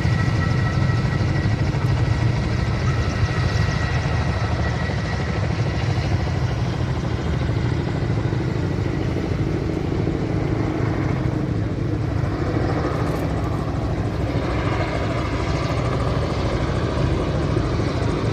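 Firefighting helicopter's rotor and engine running steadily, a deep rapid beat with a faint high whine that fades out about halfway through.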